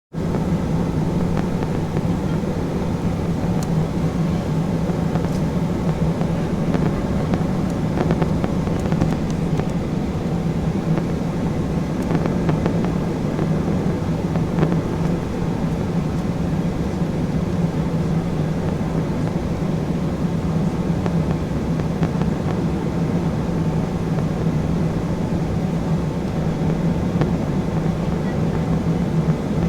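Steady in-flight cabin noise of an Embraer E175 airliner during descent: the constant drone of its twin turbofan engines and the rush of air along the fuselage, holding at an even level with a low hum as its strongest part.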